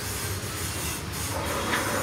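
Steady low mechanical rumble with a hiss over it, like machinery running. About one and a half seconds in, a rougher, noisier layer joins it.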